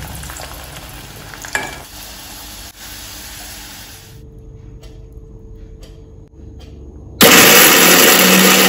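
Garlic and dried red chilies sizzling in hot oil in a steel kadai, with a clink about a second and a half in; the sizzle stops about four seconds in. About seven seconds in, an electric mixer grinder starts and runs loudly and steadily, grinding the fried chilies and garlic into a coarse paste.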